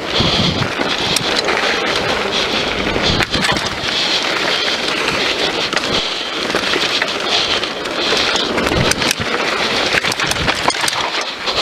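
Scott Voltage FR 730 downhill mountain bike descending a dirt trail at speed. The tyres roll over dirt and stones, and the bike clatters with many small knocks over the bumps, over a steady rush of wind on the microphone.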